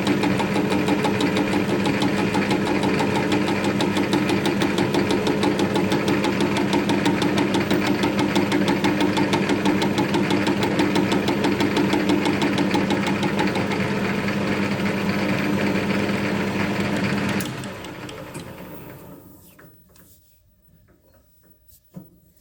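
Metal lathe running and taking a cut on a welded part, with a fast even ticking as the tool bites only at the high spots, touching at the ends and missing the middle. About 17 seconds in the lathe is switched off and spins down to a stop, followed by a single light knock near the end.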